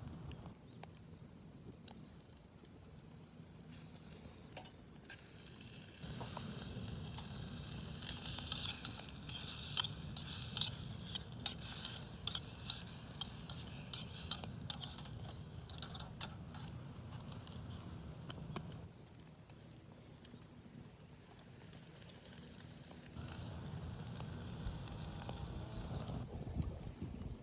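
Cooking over a wood campfire: sizzling and crackling with many sharp clicks. It comes in two stretches, a long one starting about six seconds in and a shorter one near the end.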